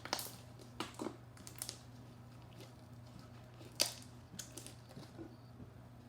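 Clear homemade slime being squished and kneaded by hand, giving irregular wet clicks and pops, the loudest a little before four seconds in, over a steady low hum.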